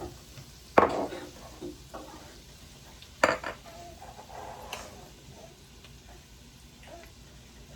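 Onions cooking in melted butter in a saucepan with a light sizzle, while a utensil stirs and clinks against the pan. Two sharp clanks of kitchenware on the pan stand out, about a second in and about three seconds in.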